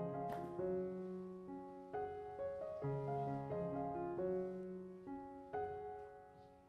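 Background piano music: a slow, gentle melody of single notes and chords, each struck and left to fade, dying away near the end.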